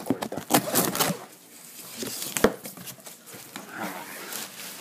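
Hands rummaging in a cardboard shipping box packed with foam packing peanuts: rustling of the foam and cardboard with several sharp knocks and clicks, the loudest about two and a half seconds in.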